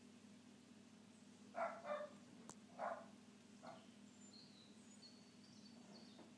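A Cavalier King Charles spaniel giving a few short barks between about one and a half and four seconds in, with faint bird chirps near the end.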